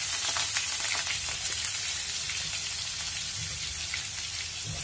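Finely chopped onion frying in hot cooking oil in a frying pan, a steady sizzle that eases a little over the seconds, just after the onion went into the oil.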